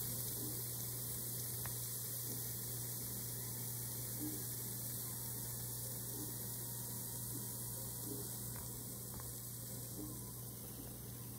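Steady low electrical hum under a faint hiss, with a few faint ticks.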